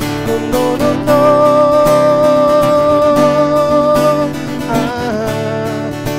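Acoustic guitar strummed while a man sings one long held note for about three seconds, followed by a short sliding vocal phrase.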